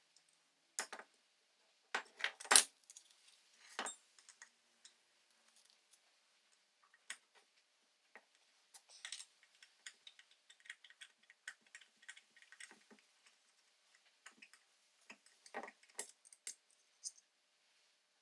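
Small metal parts clinking and clattering as they are handled and set down: a few sharp knocks in the first four seconds, the loudest about two and a half seconds in, then a run of light, quick ticks, and a few more clinks near the end.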